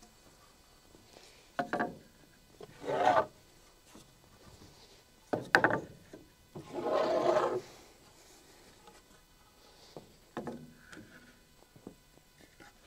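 Lumber being handled: 2x4 boards and OSB sheathing slid, rubbed and set down against wood, in several separate scrapes, with a sharp knock about five and a half seconds in and a longer scrape just after.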